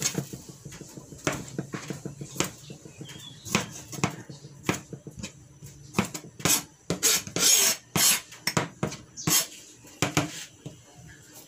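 Kitchen knife cutting tomatoes into wedges on a plastic cutting board: irregular taps of the blade striking the board, coming quicker and louder in the second half.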